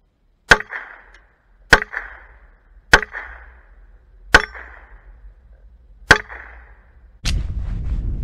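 Five 9mm shots from a Taurus PT1911 pistol, spaced one to two seconds apart, each followed by the ring of a struck steel target. Near the end a loud, steady low rushing noise takes over.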